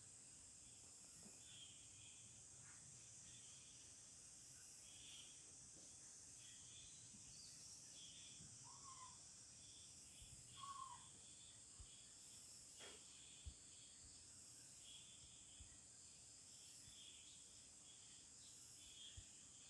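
Faint birdsong: short chirps repeating about once a second over a steady high hiss, with two brief lower calls near the middle.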